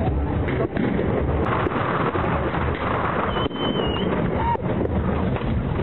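Dense, continuous din of many fireworks and rockets going off at once, with a brief high whistle about three seconds in.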